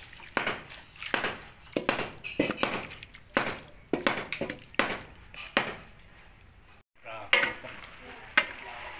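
Wooden spatula scraping and knocking against a large aluminium wok as cubed pork is stirred, a stroke roughly every half second to second. The sound drops out for a moment about seven seconds in, then a few more strokes follow.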